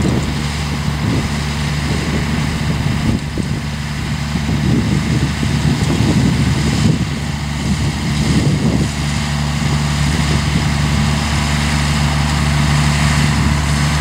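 Tractor's diesel engine running steadily under load as it pulls a seed drill, drilling maize, growing slightly louder as it approaches.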